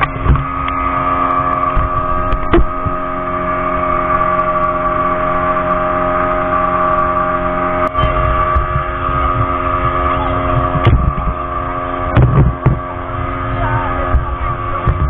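Speedboat engine running steadily at an even pitch, with a low rumble underneath and a few sharp knocks.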